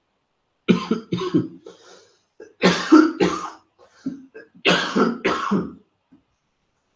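A man coughing in three bouts, each of two sharp coughs, about two seconds apart.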